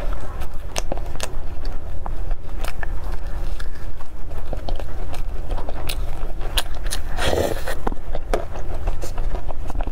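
Close-miked chewing of a crisp choux pastry with caramel-coated hazelnuts: a run of irregular sharp crunches and mouth clicks, with one louder, longer burst of crunching about seven seconds in.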